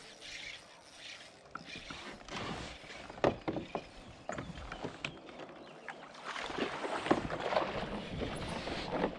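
Water splashing and sloshing around a fishing kayak, with scattered sharp knocks and clicks against the hull and gear; the splashing grows louder and denser in the last few seconds.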